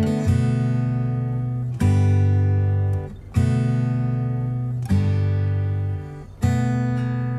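Background music: acoustic guitar chords strummed and left to ring, a new chord struck about every second and a half.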